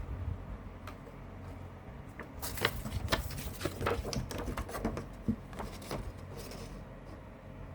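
Plastic CD case and its contents being handled: a run of small clicks and rustles, busiest through the middle, over a low steady hum.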